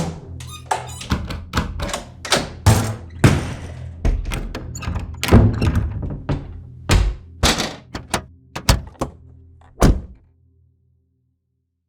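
A quick run of door sounds: heavy thunks and slams, with latch and handle clicks between them, about fifteen hits of varying loudness, some with a short rattle or swish after them. A low steady hum runs underneath.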